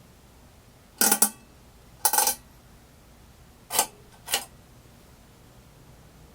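Four short metallic rattling clinks, about a second apart and then a second and a half, each lasting a fraction of a second; the last two are lighter.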